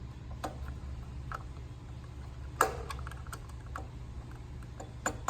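Light clicks and taps as an air compressor's pressure switch cover is handled and fitted back on, with a sharper click about two and a half seconds in and another near the end, over a low steady hum.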